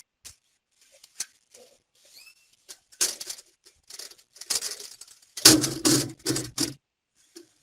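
Hardware being handled and set into position: scattered clicks, taps and scraping, with a run of louder scraping and rubbing bursts a little over halfway through.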